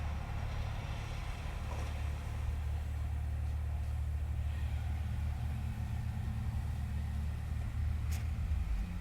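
Low, steady rumble from a film soundtrack played back through the projector's speaker, with a faint click about eight seconds in.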